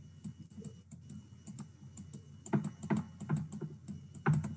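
Light, irregular clicks and taps of a stylus writing on a pen tablet, with a few louder knocks about two and a half seconds in and again near the end.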